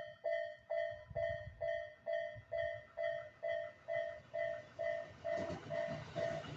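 Japanese railway level-crossing warning bell ringing in a steady, even rhythm of a little over two dings a second, signalling that a train is coming. Near the end, the rising rumble of the approaching train joins in.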